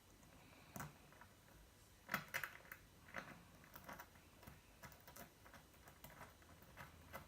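Faint, irregular small metal clicks and taps of Leatherman Tread bracelet links being handled and fitted back together, with a quick cluster of sharper clicks about two seconds in.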